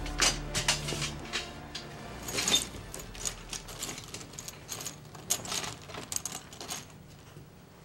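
Pearls and small metal jewellery clinking and rattling in a metal jewel box as hands rummage through it: quick irregular clicks and jingles that thin out and stop near the end.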